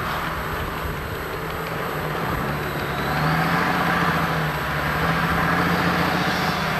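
Logging helicopter's rotor and turbine engine running steadily, with a low drone and a faint high whine; it grows a little louder about three seconds in.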